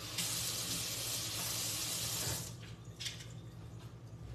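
Water running from a kitchen tap for about two and a half seconds, then shut off, followed by a light knock.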